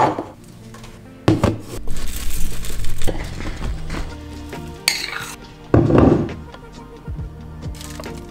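Background music over kitchen sounds: a metal spoon stirring and clinking in a stainless steel saucepan, with a few louder clatters.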